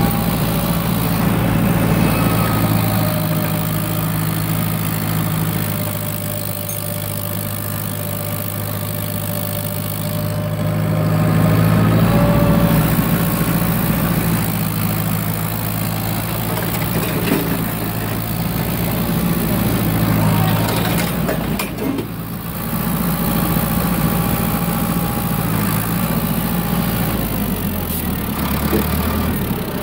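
Tractor engine running steadily under load, driving a PTO-shaft snow blower whose auger is chewing through deep, heavy snow. The engine note drops near the end.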